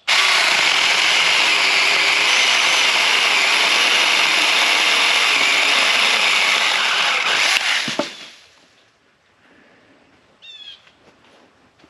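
Saker mini battery chainsaw running at full speed and cutting through a tree limb, a steady high-pitched buzz that stops about seven and a half seconds in, followed by a single sharp snap.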